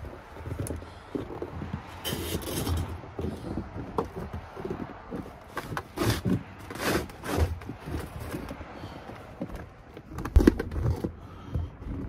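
Snow shovel scraping and scooping packed snow in irregular strokes, with a heavier thump about ten seconds in.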